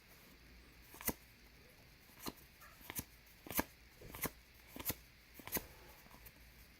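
Trading cards being flipped one by one off a stack in the hand, each giving a sharp, short snap: about eight of them, roughly one every two-thirds of a second.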